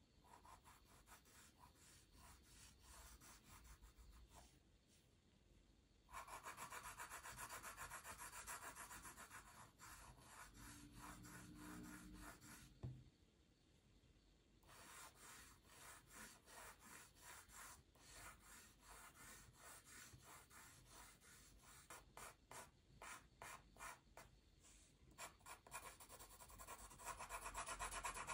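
Pencil scratching on paper in quick, repeated shading strokes, with a short pause about halfway through.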